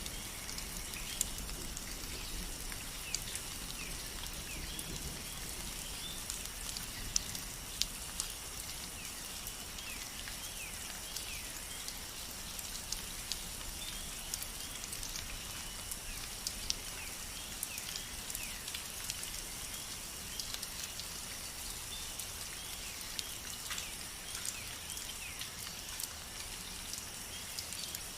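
Steady rain falling, with scattered individual drops tapping irregularly.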